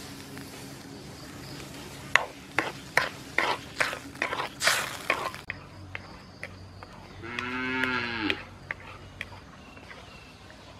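A run of about eight sharp knocks of a utensil against a metal wok, then, about seven seconds in, a cow mooing once in a single call that rises and falls.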